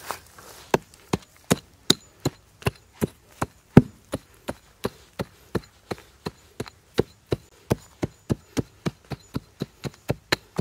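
A small camping hatchet chopping into hard, dry soil to dig out a fire pit. It strikes in a steady rhythm of nearly three sharp blows a second, with one heavier blow a little under four seconds in.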